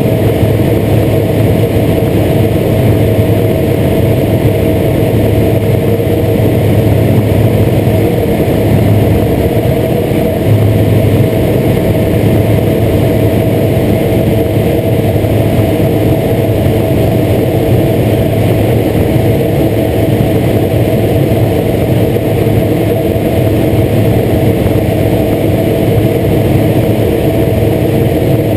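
Single-engine light aircraft in flight: the piston engine and propeller run at a steady cruise setting, with airflow noise and no change in pitch.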